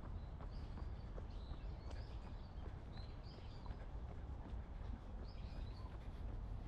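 Small birds chirping: short, high, arched notes every second or so, over a steady low rumble of outdoor background noise.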